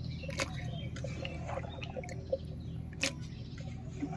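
Cut potato pieces and jackfruit seeds dropped by hand into water in a metal karai: a few separate plops and knocks against the pan.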